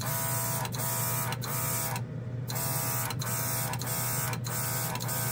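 Small battery-powered mini air compressor running with a rhythmic pulsing of about three beats a second, while a Gaahleri Ace airbrush hisses as it sprays thick primer. The hiss breaks off for about half a second around two seconds in, as the trigger is let off.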